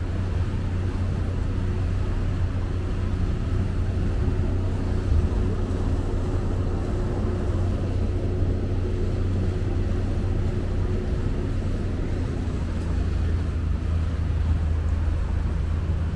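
Small passenger ferry's motor running at a steady low drone, heard on board, with a faint higher tone in it that fades out about two-thirds of the way through.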